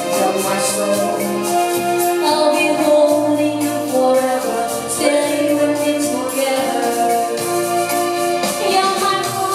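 Electronic keyboard playing a disco-pop song live, held chords and melody over a steady drum-machine beat.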